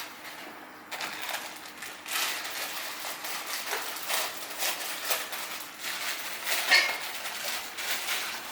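A pot of ramen noodles cooking in boiling water, with a string of short, irregular scraping and knocking sounds in the kitchen. The loudest knock comes near the end.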